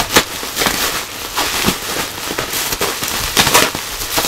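Plastic bubble wrap crinkling and crackling as it is handled and pulled open by hand, a dense run of sharp crackles with a few louder snaps.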